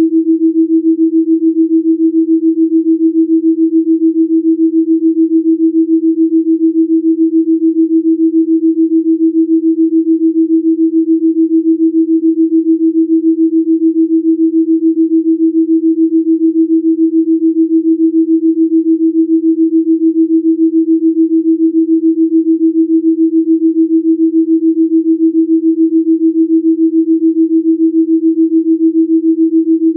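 A single steady pure tone, low-mid in pitch, pulsing evenly several times a second: a delta-range Rife frequency tone.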